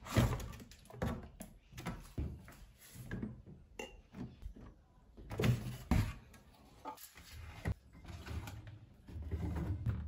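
Bottles, jars and dishes being lifted out of a refrigerator's door racks and wire shelves and set down: scattered irregular clinks and thunks.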